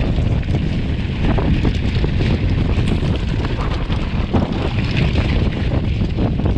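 Wind buffeting the camera microphone as a mountain bike rolls downhill, a steady low rumble with many small, quick knocks from the tyres and rattling bike.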